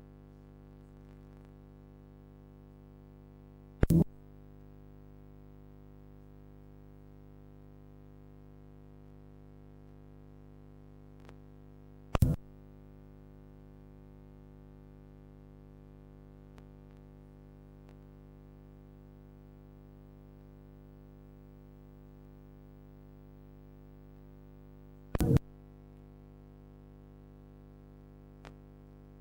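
A steady low electronic drone, with three loud sharp pops about 4, 12 and 25 seconds in and a few faint ticks between them.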